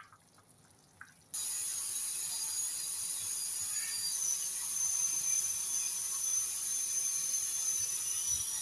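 Stovetop pressure cooker hissing steadily as steam escapes from its pressure valve, with a thin whistle over the hiss: the cooker is at full pressure and cooking. The hiss starts abruptly about a second in, after a couple of light clicks.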